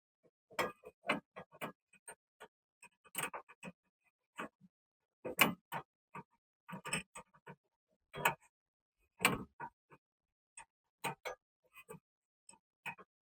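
Irregular metallic clicks and knocks of hand tools, a wrench and socket working on the nut of a car's rear suspension stabilizer link.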